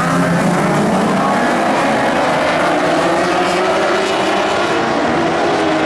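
Several Lightning Sprint race car engines running at speed together, their pitches rising and falling against one another.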